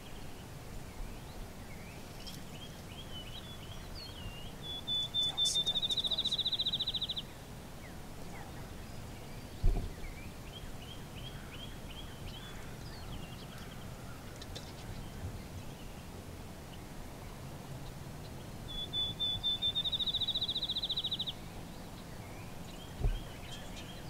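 A songbird singing twice, about fourteen seconds apart: each song is a few short notes running into a fast, high trill of about two seconds that grows louder and then stops. Fainter chirps from other birds come and go, with a sharp low thump about ten seconds in and a softer one near the end.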